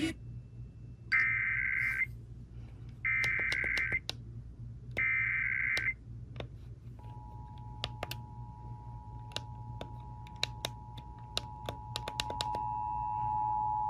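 Emergency Alert System header: three one-second warbling data bursts of digital tones about a second apart, which encode the alert, followed by the steady two-tone EAS attention signal that sets in about seven seconds in and gets louder near the end. Scattered clicks sound throughout.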